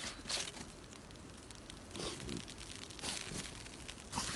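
Snow crunching and rustling in several short bursts as a small dog moves through it.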